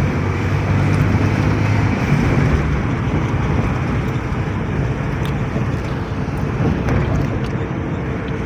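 A moving vehicle's engine and road noise, steady throughout, with a low engine drone that is strongest at first and eases about two seconds in.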